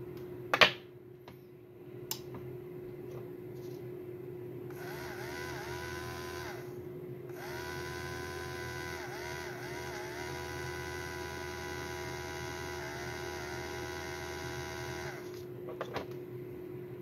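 Small brushed DC hobby motor, run from a 9-volt battery, whirring with a high whine as it drives a second small motor as a generator by a belt. It runs for about two seconds, stops briefly, then runs for about eight seconds more, its pitch dipping now and then. A click about half a second in, and a low steady hum throughout.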